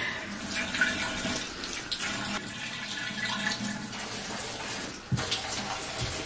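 Water running and splashing in a bathtub as a puppy is washed and rubbed down by hand: a steady watery hiss.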